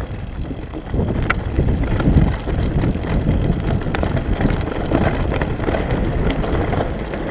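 Wind buffeting a GoPro microphone as a Lapierre downhill mountain bike rolls fast over dirt and leaf litter, with tyre noise and frequent sharp clicks and rattles from the bike over bumps. It gets louder about a second in.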